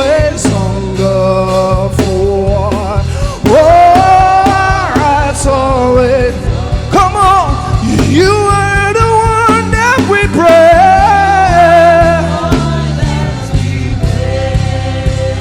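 Live gospel worship song: a solo voice sings long, held and bending melodic lines over a full band with bass, drums and guitar.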